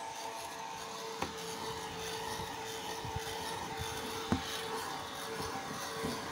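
Handling noise from the phone: a steady hum and hiss with a few small rubs and ticks, and two short knocks, one about a second in and one past four seconds.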